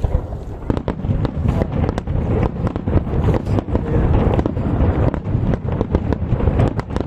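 Aerial fireworks bursting in quick, irregular succession, many sharp bangs overlapping over a continuous deep rumble.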